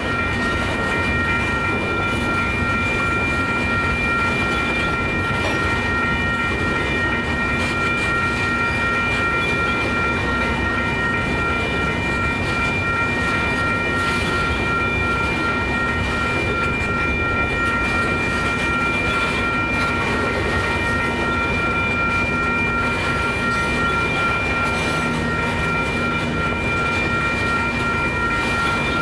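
Freight train of tank cars rolling steadily past: wheels rumbling and clattering over the rails, with steady high-pitched ringing tones over the rolling noise.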